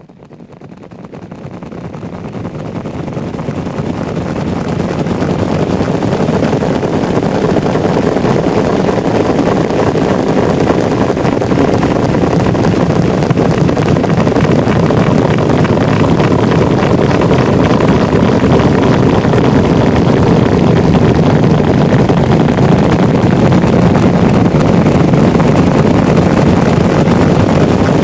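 Horse stampede: the hoofbeats of many galloping horses blend into a dense, continuous drumming. It fades in over the first few seconds, then holds steady and loud.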